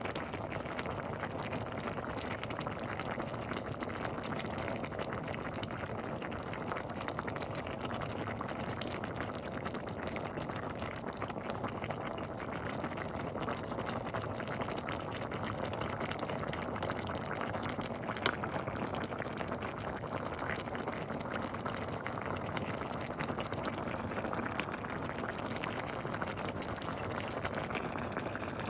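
Pot of green mung bean soup with vegetables and shrimp bubbling at a steady boil, with a single sharper click about eighteen seconds in.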